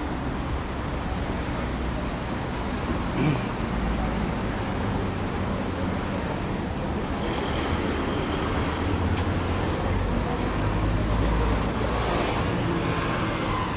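Busy city street traffic: car engines running and passing with a steady low rumble, under the faint murmur of pedestrians.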